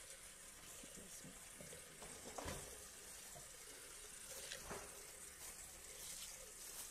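Faint water running from a kitchen tap into a sink, with a couple of light knocks.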